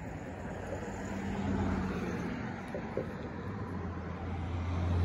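Road traffic: a steady low vehicle hum over road noise, swelling a little about a second and a half in and again near the end.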